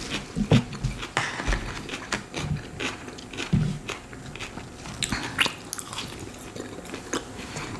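A person chewing and biting food, with irregular mouth clicks and smacks and a couple of low thumps.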